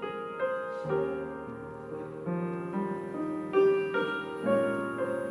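Grand piano playing chords and a melody line, with a new note or chord struck about every half second and each one left to ring and fade.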